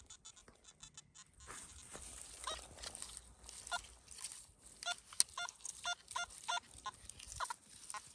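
Geese honking repeatedly, a run of short calls, some bending in pitch, over a steady hiss.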